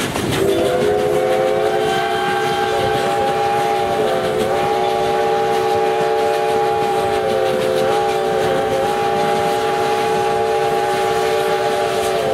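Steam locomotive 3716's chime whistle blowing one long blast, a chord of several notes held for about twelve seconds, its upper notes sagging briefly twice.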